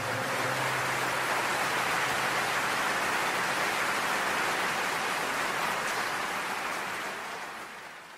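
Steady, even rushing hiss without any tone, fading out over the last second or so.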